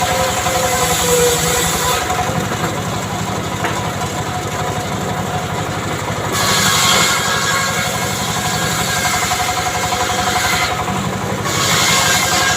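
Saw engine running steadily, with brighter hissing noise rising over it three times: at the start, about halfway through, and near the end.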